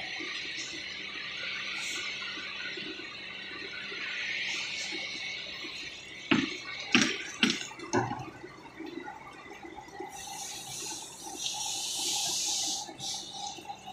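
Construction-site noise: a steady high hiss, then four sharp knocks in quick succession about halfway through.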